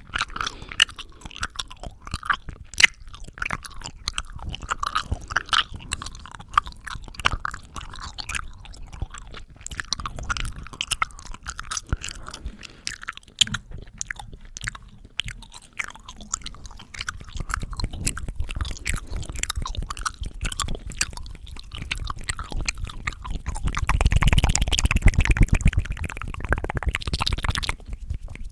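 ASMR mouth sounds: a dense run of rapid wet clicks and smacks from the lips and tongue, swelling into a louder, fuller wet stretch for a few seconds near the end.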